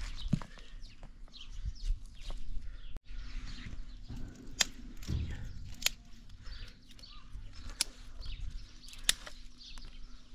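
Several sharp clicks and knocks, a second or two apart, as stones and dry sticks are handled on stony ground, with small birds chirping faintly.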